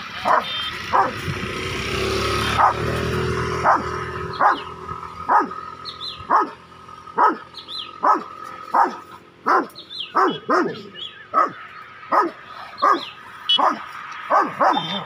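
Rottweiler barking steadily at about one short, sharp bark a second, directed at a cow across a fence. A low rumble runs under the first few seconds.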